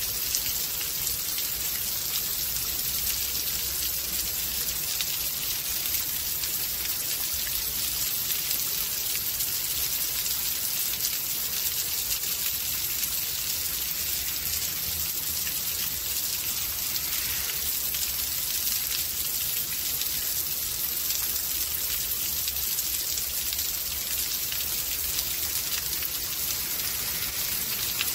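Steady rain from a rain storm: an even hiss of falling rain with many tiny drop ticks, holding one level.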